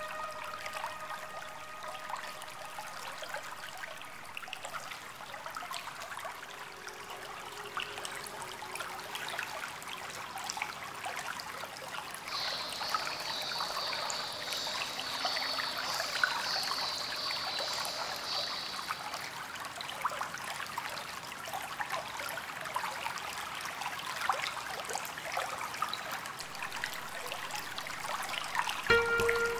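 Steady trickling water. A high, even hiss or buzz sits over it from about twelve to nineteen seconds in, and a pitched tone comes in near the end.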